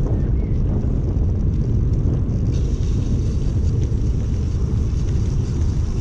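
Wind buffeting a bicycle-mounted camera's microphone as the bike rides along a dirt path, with the tyres rumbling over the ground. About two and a half seconds in, a higher hiss joins as the tyres roll onto the wet, puddled surface.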